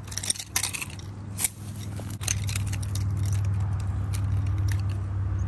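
Light clicks and rustles as a homemade broomstick-and-rope nunchaku is swung and caught in a thumb roll. About two seconds in, a steady low droning hum starts and becomes the loudest sound.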